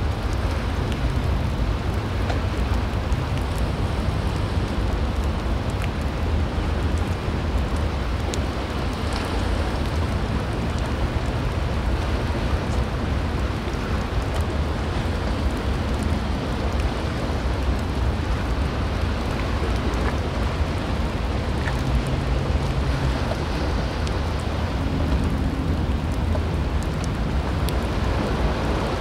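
Storm wind and rough surf washing against a rock jetty: a steady, noisy roar with deep wind rumble on the microphone.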